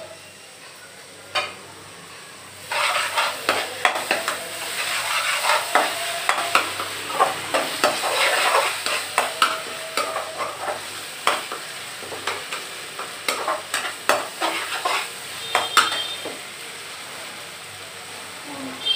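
A perforated metal skimmer stirring and scraping thick spice masala in a metal kadai, with quick irregular clicks of metal on metal over a steady sizzle of the masala frying in oil, as the freshly added curd is worked in. The stirring starts about three seconds in and thins out near the end.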